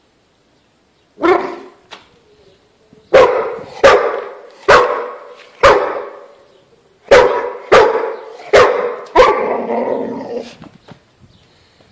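A dog barking: one bark about a second in, then a run of about eight more loud barks every half second to a second, the last ones running together.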